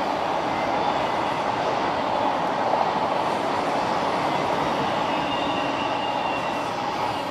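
Freight train rolling past: the wheels of autorack and double-stack container cars running steadily on the rails.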